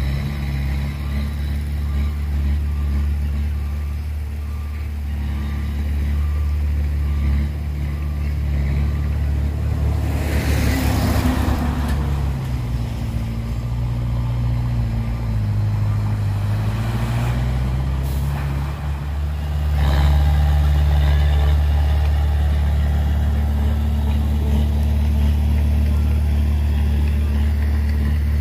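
Heavy diesel truck engine running steadily at idle. Its note dips and rises again between about twelve and eighteen seconds in. There is a burst of air-brake hiss about ten seconds in and shorter hisses near seventeen and nineteen seconds.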